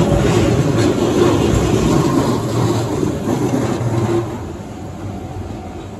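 Keihan 700-series two-car electric train passing close by on curved track, its wheels rumbling and clicking over the rails. The sound falls away sharply about four seconds in as the rear car goes past.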